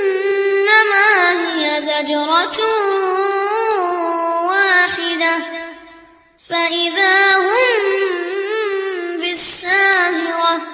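A high voice singing a song in long held notes with vibrato, in two phrases with a short break about six seconds in.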